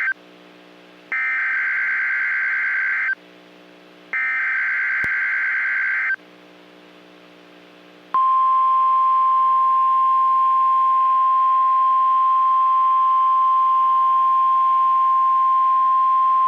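NOAA Weather Radio EAS/SAME alert: the end of one burst and then two more bursts of warbling digital header tones, each about two seconds long with a second's gap between them. About eight seconds in comes the steady single-pitch 1050 Hz warning alarm tone, signalling a tornado watch.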